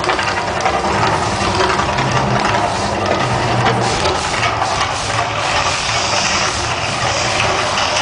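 Mirage volcano attraction's eruption effects: a loud, steady low rumble under a dense rushing noise, with no sudden bursts.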